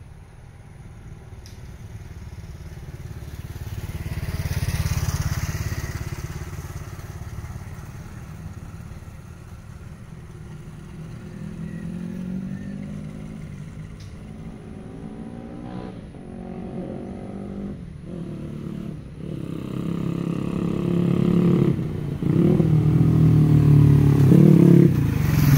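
Small motorcycle engine approaching and growing steadily louder, its note climbing, dropping and climbing again several times as the rider changes gear, loudest near the end as it comes close.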